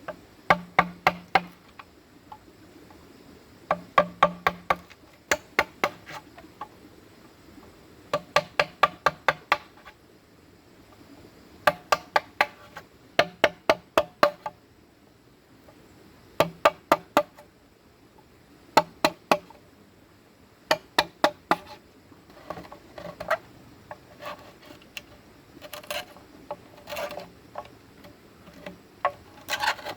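Hollow bamboo being struck with a tool in quick runs of about five to eight blows, each knock ringing briefly and hollowly, with pauses between the runs. From about two-thirds of the way in, the knocks become softer and more irregular.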